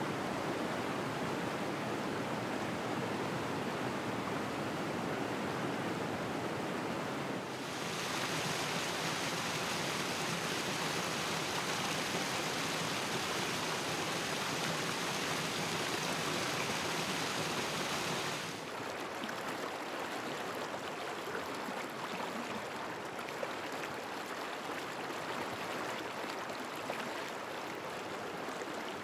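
Spring-fed creek rushing down a small waterfall and over rocks: steady splashing and rushing water. It turns brighter and hissier for about ten seconds in the middle, then softer near the end.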